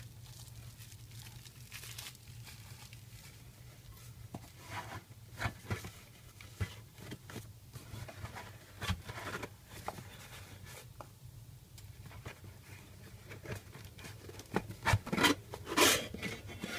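Unpacking sounds: plastic bubble wrap crinkling and rustling, with parts knocking and scraping against a cardboard box. The loudest scrapes and rustles come about a second before the end, as the metal base plate is lifted out of the box.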